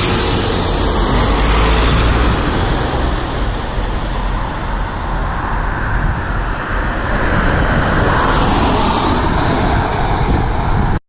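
Steady road noise of a moving vehicle heard from inside: a low rumble under a broad hiss.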